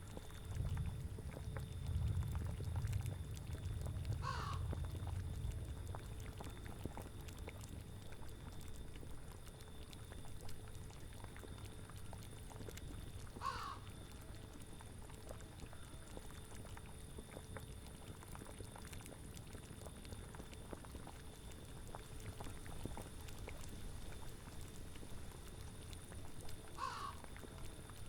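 Layered spooky ambience soundscape: a steady bed of bubbling from a boiling cauldron and wind, with a low gust of wind swelling in the first few seconds. Three short animal calls, about ten seconds apart, stand out over it.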